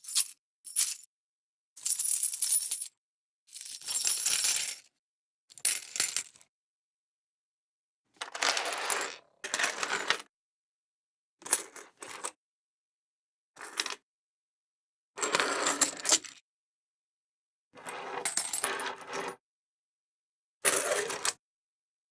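A series of separate coin sound effects: coins dropping and clinking. There are about ten short bursts, each lasting up to about a second and a half, with complete silence between them.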